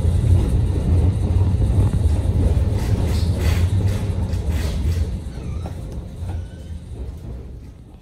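Tram running, a steady low rumble heard from inside the car, with a few faint clicks in the middle; it dies away over the last few seconds.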